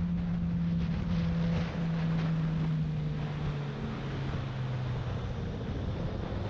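Suzuki GSX-R sportbike engine droning with a steady tone that slowly drops in pitch as the bike slows from about 100 km/h, with wind rushing over the microphone.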